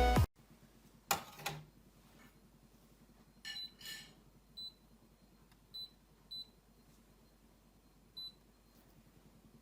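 Short, high electronic beeps from the De'Longhi Eletta espresso machine's control panel as its buttons are pressed. There are about six, irregularly spaced, the first two a little fuller, after a couple of faint clicks.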